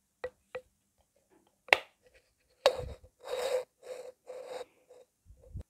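Several sharp clicks, the loudest about a second and a half and two and a half seconds in, followed by a run of short scuffing, rustling noises and a low thump near the end.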